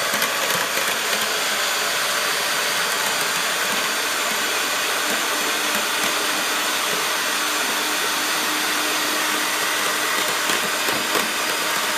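Electric hand mixer running steadily, its beaters whipping eggs in a stainless steel pot to a pale foam for sponge batter.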